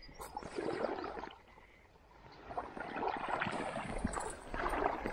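Wading steps sloshing through shallow creek water, with a pause of about a second partway through.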